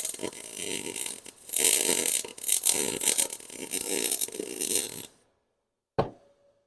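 Welding arc crackling in short stitches as a steel patch is welded into a car's frame rail, stopping abruptly about five seconds in. A single sharp click follows near the end.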